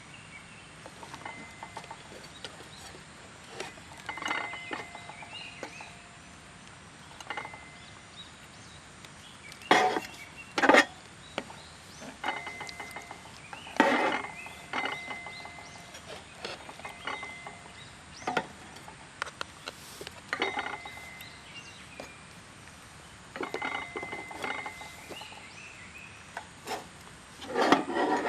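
Metal camp cookware being handled: irregular clinks and knocks, several leaving a brief metallic ring, with a few louder knocks around the middle and near the end.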